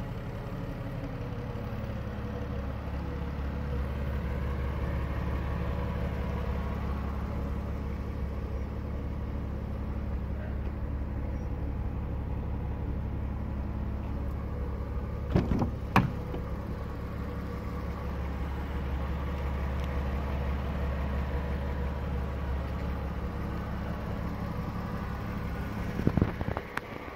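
Porsche Boxster 2.7's flat-six engine idling steadily. A couple of sharp clicks come about halfway through and again near the end.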